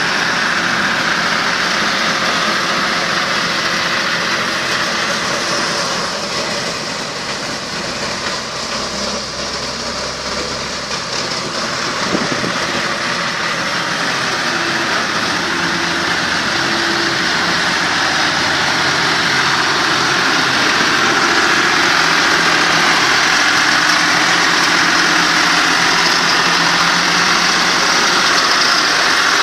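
Diesel engines of a farm tractor and the towed vibrating roller's own onboard engine running steadily together as the roller is pulled along. The sound dips a little about a quarter of the way in and grows louder in the last third.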